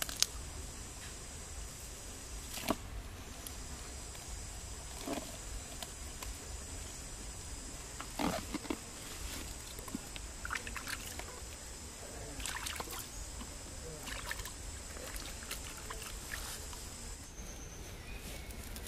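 Hands handling wet banana-trunk sheaths and leaves: scattered clicks, rustles and soft splashes. Beneath them runs a steady high-pitched drone that stops about a second before the end.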